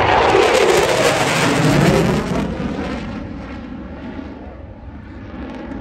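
F-16 Fighting Falcon jet passing by. Its loud rushing noise falls in pitch as it goes past, then fades away after about three seconds.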